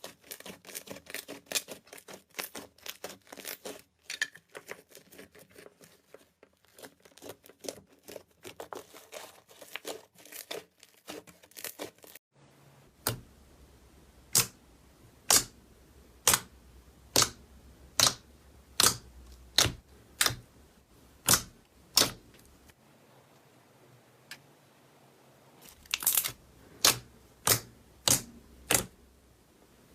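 Slime being handled, with crackling, popping clicks. At first the clicks come fast and dense. About twelve seconds in they change to sharp single pops about one a second.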